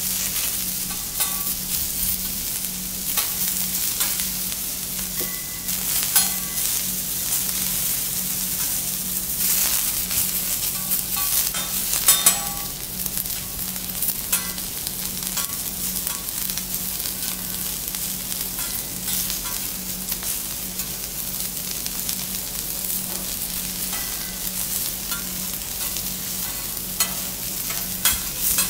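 Vegetables sizzling on a teppanyaki iron griddle, with the metal spatulas repeatedly clicking and scraping on the plate, the sharpest knocks about twelve seconds in. A steady low hum runs underneath.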